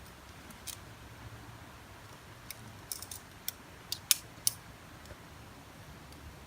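Climbing hardware clinking: carabiners and quickdraws on a climber's harness or rack. It gives a scattered run of about ten short, sharp clicks, bunched in the middle, with the loudest clicks about four seconds in.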